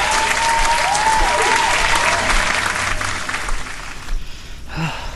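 Tall grass and weeds brushing and crackling against a mountain bike and the rider's legs as he pushes the bike uphill on foot, easing off after about three and a half seconds. A thin whistle rises and falls a few times in the first two seconds.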